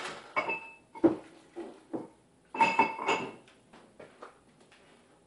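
Dishes and kitchenware clattering as they are handled: a few sharp clinks with a short ring, the loudest pair about two and a half seconds in, then lighter knocks.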